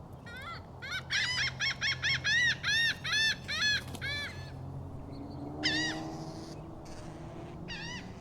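Seagulls calling: a rapid run of repeated yelping calls, about three a second, for a few seconds, then a couple more calls near the end, over a steady low hum.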